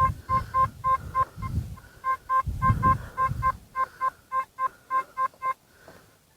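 Metal detector beeping in short bursts of one steady pitch, about three or four a second, as it sounds off on a target that the detectorist reckons is deep and may be iron; the beeps stop near the end. Low rumbling noise runs underneath.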